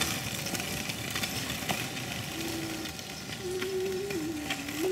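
Small plastic kick-scooter wheels rolling over asphalt, an even rolling rumble with a few light ticks. A faint wavering tone comes in about halfway through.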